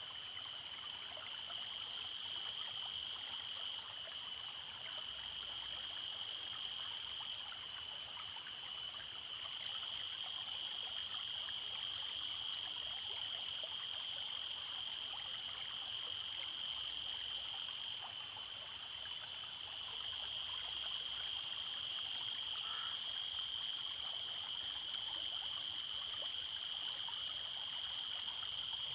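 A steady, shrill chorus of calling frogs and insects, unbroken, over a faint rush of flowing stream water.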